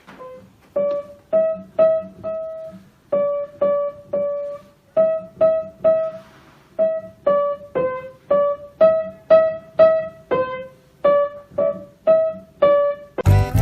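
Background music: a simple keyboard melody played one note at a time, each note struck and fading, about two notes a second with short pauses between phrases.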